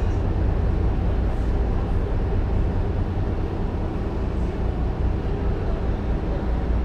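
Steady low rumble of a ferry under way, heard from on board: engine drone with water and wind noise.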